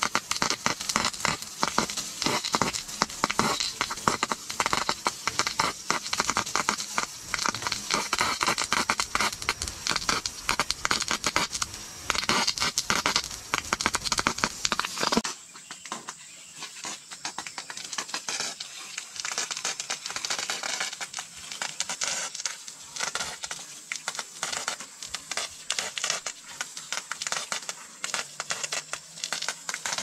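Water jet from a garden hose spattering onto wooden floor slats as they are hosed down. The spattering is loud and dense at first. About halfway through it drops suddenly to a quieter, thinner patter.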